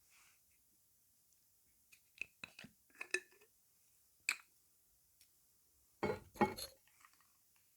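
Cutlery and dishes clinking in a series of sharp taps, with a louder dense cluster of clicks about six seconds in.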